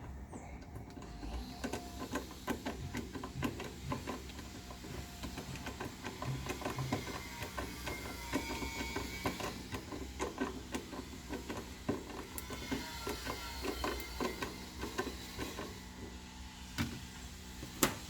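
7/16 socket on a ratchet wrench clicking in a long, irregular run of quick clicks and rattles while the washer's agitator bolt is being turned.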